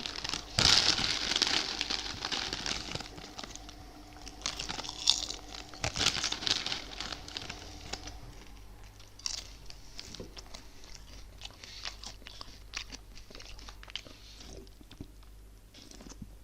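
Potato chips being bitten and chewed close to the microphone: loud crisp crunches about a second in and again around five to seven seconds, then quieter, sparser chewing crackles.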